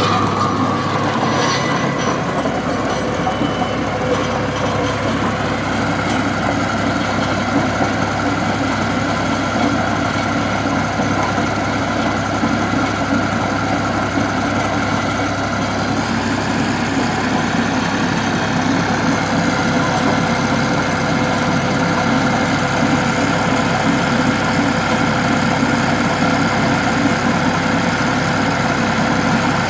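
Diesel tractor engine running steadily under load while driving a chain trencher that digs through the soil.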